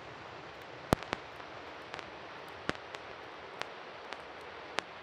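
Wood campfire crackling: a steady hiss with sharp pops at irregular intervals, about seven in all, the loudest about a second in.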